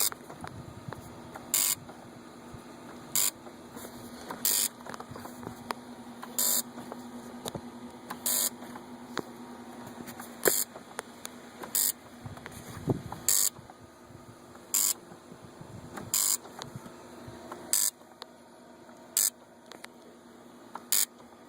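Short buzzes repeating about every one and a half seconds over a steady low hum, from a Yamaha 225 outboard that is starved of fuel and will not start; the owner suspects the fuel injectors.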